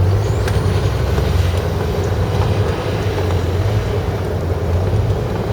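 Blizzard wind blowing on the microphone: a loud, steady low rumble.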